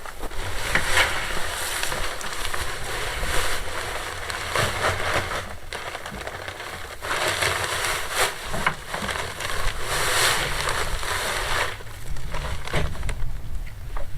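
Concrete being mixed: an uneven gritty scraping and crunching of sand, gravel and cement, rising and falling in swells over a low rumble.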